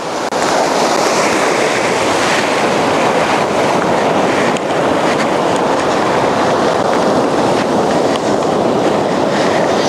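Ocean surf breaking close by: a loud, steady rush of white water washing up the beach.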